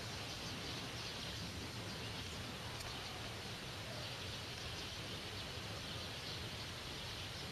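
Faint steady outdoor background noise: a low rumble under a high hiss, with faint high chirping that comes and goes.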